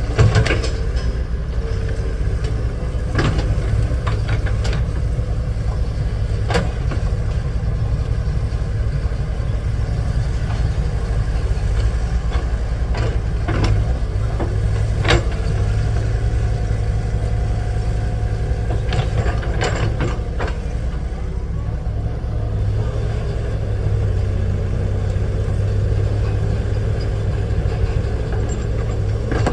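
Excavator's diesel engine running steadily under load, with several sharp metallic knocks scattered through.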